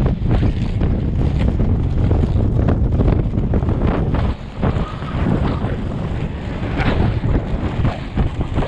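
Wind buffeting the action camera's microphone while skating downhill at speed, over the rumble and grit of three-wheel inline skate wheels rolling on rough asphalt.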